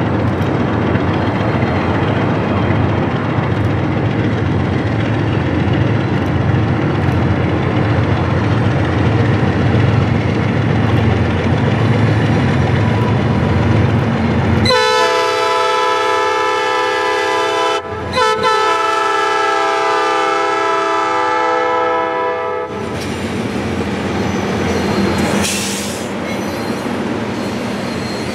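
Two GE B23-7 diesel locomotives with 12-cylinder engines working as they approach. The lead unit sounds its multi-note horn in two long blasts, with a brief break between. Then the locomotives and covered hoppers pass close by, wheels clicking over rail joints, with a brief high squeal.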